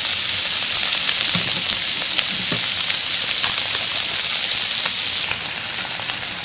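Beef strips frying in butter and sauce in a wok over high heat: a steady sizzle with scattered small pops.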